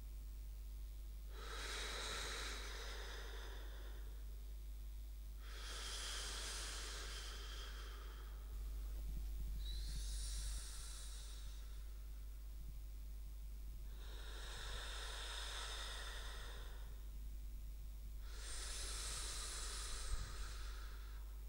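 Slow, heavy sleep breathing: five long, noisy breaths, one about every four seconds.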